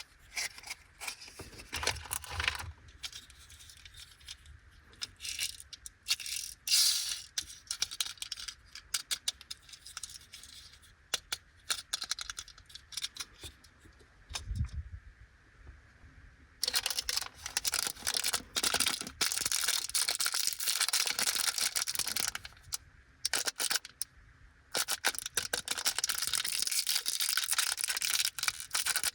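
Light plastic clicks and taps from handling small plastic pieces. About halfway through, these give way to the steady crinkling and tearing of the plastic wrapper of a bag of Anpanman chocolates being opened, with a couple of short pauses.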